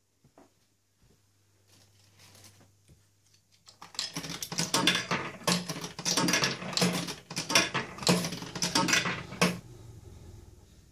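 Coins clattering in an old fruit machine: a dense run of sharp metallic clinks for about five seconds, starting about four seconds in and dying away near the end.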